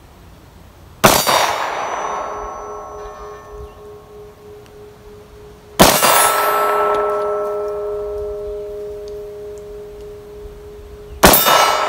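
Three pistol shots, about five seconds apart, each followed by a steel target ringing and slowly dying away.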